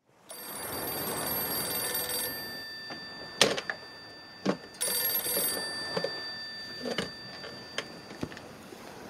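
A telephone ringing: one long ring, then a shorter second ring about two and a half seconds later. Several sharp knocks and clicks fall between and after the rings, and the loudest of them comes between the two rings.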